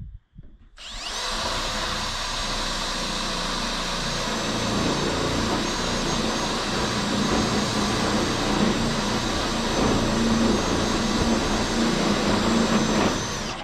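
Power drill running steadily for about twelve seconds, driving a screw into the sheet-metal roof panel of a metal carport. Its whine rises as it spins up about a second in, and it cuts off suddenly near the end.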